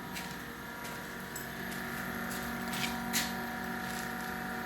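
Solar-powered ice block machine running on its DC compressor and DC fans: a steady hum with several fixed tones. A few light clicks come through about halfway.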